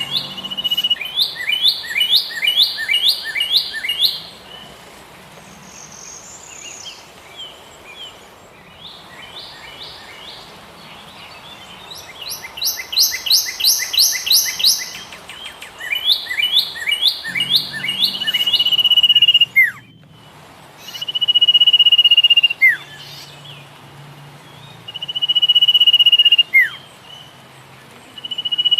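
Songbirds singing: bursts of rapid repeated high chirps, and in the second half a steady high whistled note about a second long every three seconds or so, each ending in a quick falling note.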